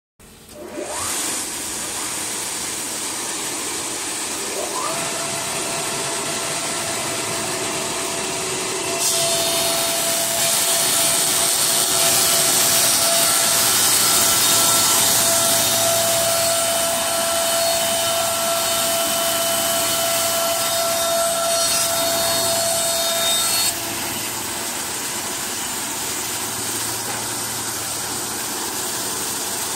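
Industrial thickness planer starting up, its motors whining up to speed in two rising glides near the start, then running steadily. About nine seconds in, a board feeds through and the cutter heads planing the wood add a loud hiss for about fifteen seconds. The hiss stops abruptly and the machine runs on empty.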